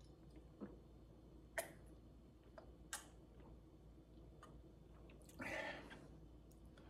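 Near silence: a man sipping and swallowing water from a glass, with a few faint clicks and gulps, then a short breath out near the end as he finishes.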